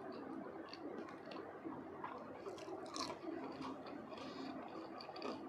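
Close-miked chewing of crispy fried potatoes, irregular crunches and wet mouth sounds, loudest about three seconds in.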